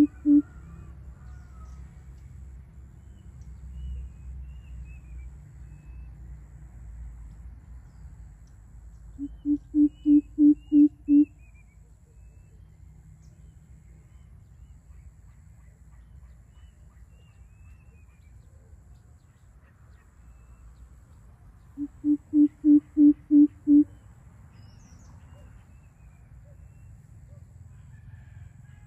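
Greater coucal giving its deep hooting call in runs of about seven hoots, each run growing louder. The end of one run comes right at the start, then two full runs follow about twelve seconds apart. Faint high chirps of small birds can be heard between the runs.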